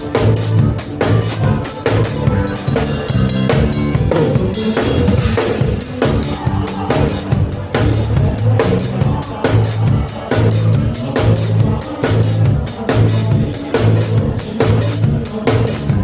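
Live gaúcho fandango band playing instrumentally: a drum kit keeps a steady, even beat under bass and a button accordion (gaita).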